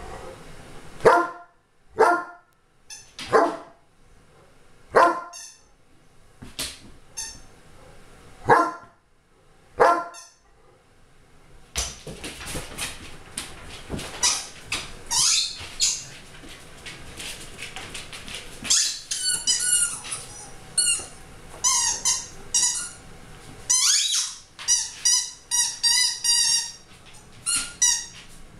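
A dog barking during play: about seven sharp barks spaced a second or so apart, then a busier stretch of quicker, higher-pitched sounds.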